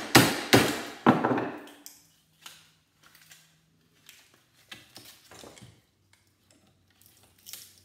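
Hammer blows on a small transformer clamped in a steel bench vise, about three quick strikes in the first second and a half, each ringing briefly, knocking loose the steel pieces that hold the copper coils. After that come light, scattered metallic clinks and clatter as the loosened steel and coil are handled.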